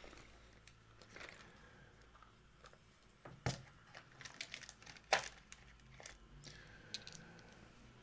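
Dice being handled and rolled on a desk: scattered light clicks, with two sharper clacks about three and a half and five seconds in. The roll gives a percentile result.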